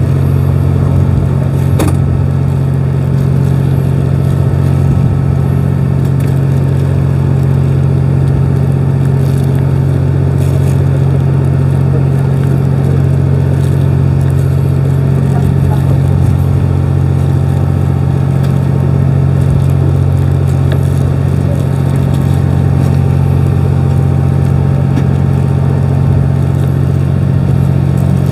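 Steady, loud low drone of a fishing boat's engine running, with a few faint clicks.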